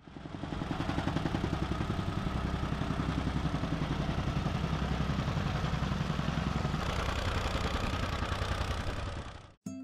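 Small gas engine of a jumping-jack tamping rammer running, its foot pounding the soil in a rapid, even rhythm as it compacts the ground. The sound fades in at the start and cuts off abruptly just before the end.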